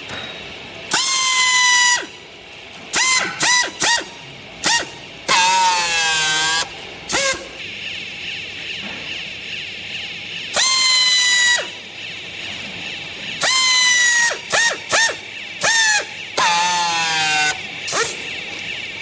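Automatic strapping unit of a clothes baler, its motor whining in repeated short bursts. Each burst rises quickly to a steady high pitch and cuts off, and one sags and wavers under load, as the strap is fed, pulled back and tensioned around the bale.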